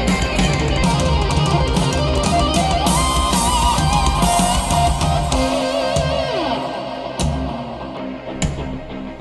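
Rock song with electric guitar, bass and drums played back through hi-fi bookshelf speakers. About five seconds in the heavy bass and full band drop away to a sparser passage with single hits.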